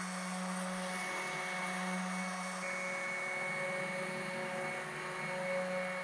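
AEG random orbital sander running steadily with a constant hum as its pad sands the edge of a plywood panel; the hum wavers briefly about a second in.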